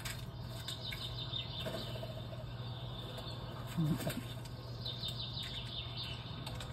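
Small birds chirping in quick faint series, played back from a nature video on a screen, over a steady low hum. A brief low voice-like sound comes about four seconds in.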